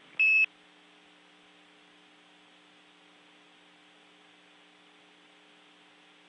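A single short, high radio beep on the space-to-ground voice link as the transmission ends. After it comes a steady, faint electrical hum with light hiss on the open audio channel.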